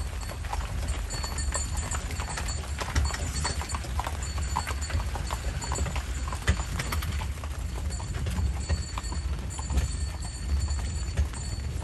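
A carriage horse's hooves clip-clopping at a walk, as a run of sharp strikes over a steady low rumble.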